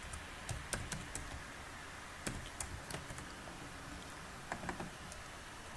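Computer keyboard keystrokes: faint, irregular clicks, some in quick little runs, as a word is typed into code.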